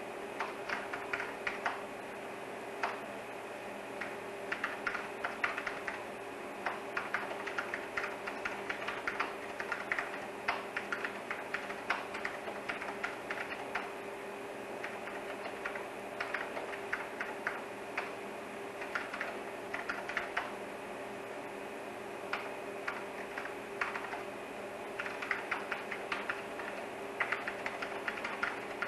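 Typing on a keyboard: bursts of quick clicks with short pauses between them, over a steady hum.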